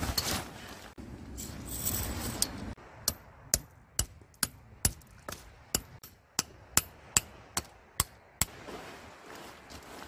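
Tent peg being hammered into the ground: a steady run of about fourteen sharp strikes, a little over two a second, that stops near the end. Before it comes a few seconds of rustling.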